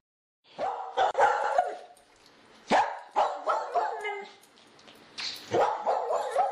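A dog barking in three runs of quick, short barks, with brief pauses between them.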